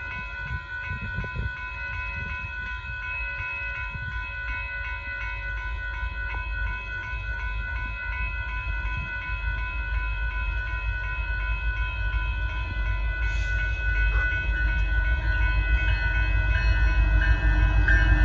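Railroad crossing bells ring steadily while the low rumble of an approaching Union Pacific freight train builds and grows louder toward the end.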